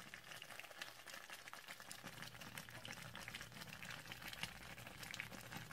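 Shiro wot bubbling softly in a hot black clay pot: faint, irregular small pops and ticks from the simmering stew.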